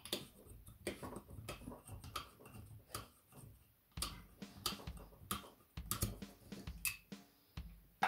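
Corkscrew being worked into the cork of a glass wine bottle and drawing it out: a run of irregular sharp clicks and scrapes.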